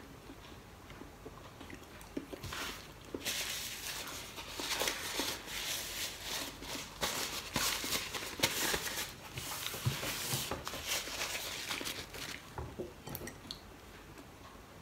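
Paper napkin rustling and crinkling as hands are rubbed and wiped in it, starting about three seconds in and stopping a couple of seconds before the end.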